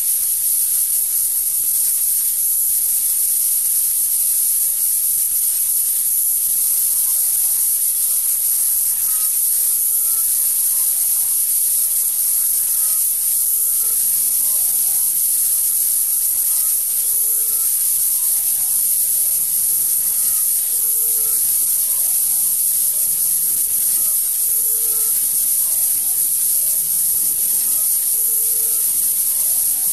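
Steady, loud, high-pitched electronic hiss like static, unchanging throughout. From about seven seconds in, faint short tones repeat underneath it every few seconds.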